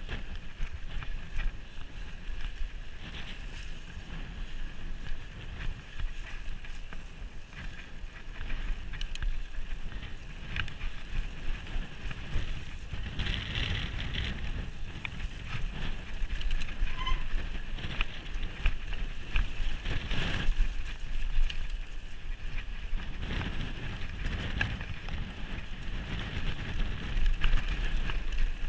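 Wind buffeting the microphone over the tyre noise and rattle of a mountain bike riding a rough grassy, stony singletrack, louder in stretches over rockier ground.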